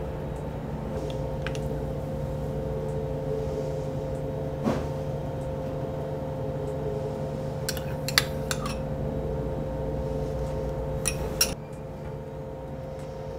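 A metal spoon clinking a few times against a small glass cup while scooping sour cream: one light clink, a quick cluster of them, then two more near the end. Under it runs a steady machinery hum that drops in level shortly before the end.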